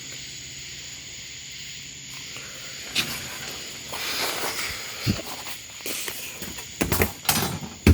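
A steady hiss, with scattered knocks and shuffling footsteps from about three seconds in and the loudest knock near the end.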